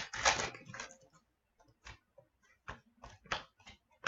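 Hockey trading cards being handled: a short rustle of cards sliding over each other, then a run of light, separate clicks and taps as cards are flicked through and set down.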